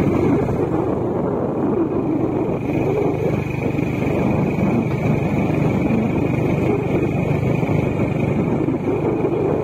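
Motorcycle engine running steadily while under way, with continuous road noise.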